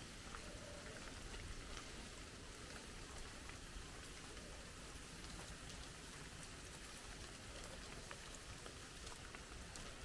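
Light rain: scattered, irregular drop ticks over a faint steady hiss.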